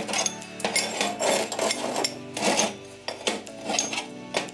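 Square steel tubes scraping and clinking as they are slid and set down on a steel workbench, with background music playing.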